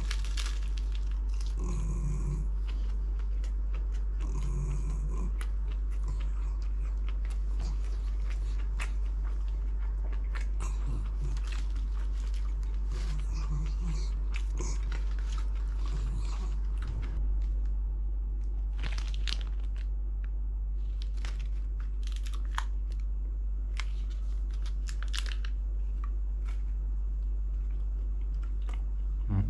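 Close-up eating sounds: chewing and biting, with many short sharp clicks and crackles scattered throughout, over a steady low hum.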